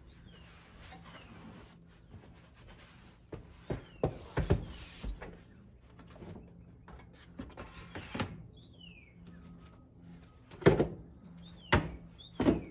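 Plastic storage bins and baskets being shifted and set down on the truck bed and wooden frame: irregular clunks and knocks with scraping between them, the loudest knocks near the end. A bird chirps a few times in the background.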